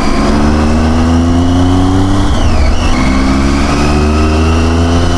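Triumph Tiger 800's three-cylinder engine and exhaust pulling under acceleration, its pitch climbing steadily, with a short break about two seconds in before it climbs again.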